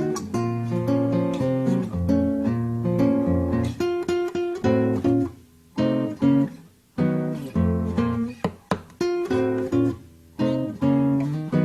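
Background music on acoustic guitar, picked and strummed notes changing quickly, with a couple of brief near-pauses in the middle.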